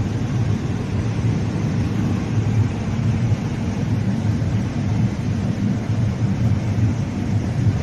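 High-speed train running at speed, heard from inside the carriage: a steady low rumble with an even rushing noise over it.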